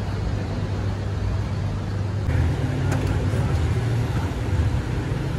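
A motor engine running steadily with a low hum over street noise. A little over two seconds in, its pitch shifts slightly higher, and there is a faint click about three seconds in.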